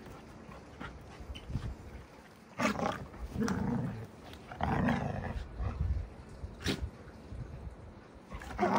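Alaskan Malamute puppies play-fighting, growling in several short rough bouts that start about two and a half seconds in.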